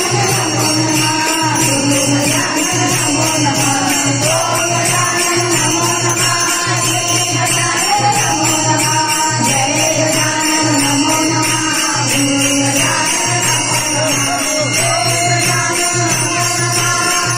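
Women's group singing a devotional bhajan in unison, with many pairs of brass hand cymbals (taal) clashing together in a steady, fast beat.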